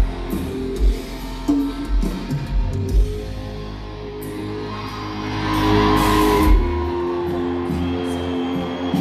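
Live rock band playing: electric guitars and drums, with regular low drum thumps in the first three seconds, held guitar chords after them, and a swell of hissy high sound about six seconds in.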